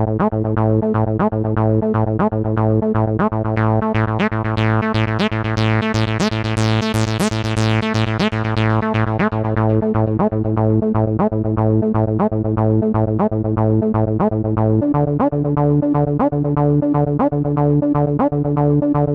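iceGear Lagrange software synthesizer playing a sequenced patch: a held bass and chord under a fast, even run of short plucked notes. The tone grows much brighter in the middle and then darkens again, and the bass and chord move to new notes near the end.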